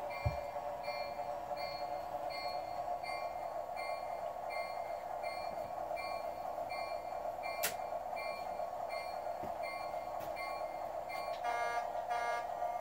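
Sound system of a Flyer Chief Baldwin diesel switcher in S gauge, playing a steady diesel running sound with the bell ringing about twice a second. There is a sharp click about eight seconds in, and near the end two short horn toots.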